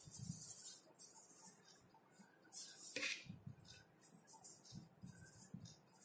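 Faint, scratchy swishes of a paintbrush stroking watercolour wash across paper, with a light knock about three seconds in.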